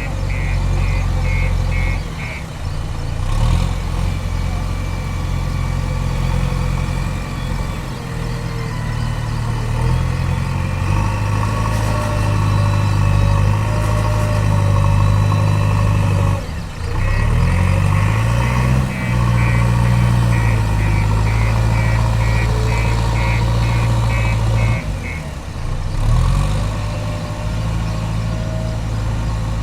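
JCB 3DX backhoe loader's diesel engine running under working load, its pitch shifting and rising as it is revved. A fast beeping repeats briefly at the start and again for several seconds past the middle.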